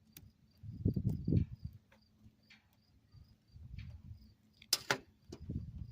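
Hands working metal hose clamps over a patched PEX water line: scattered low knocks and bumps, with a few sharp clicks, the loudest just before the end. A faint high ticking repeats about three times a second throughout.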